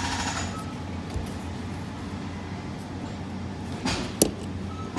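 A loud machine noise cuts off about half a second in, leaving a quieter steady low machinery hum, with a single sharp click near the end.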